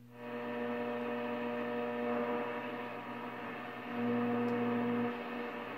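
1934 RCA 128 tube radio's loudspeaker giving a steady mains hum over static hiss while it is tuned between stations. The hum swells for about a second near the end.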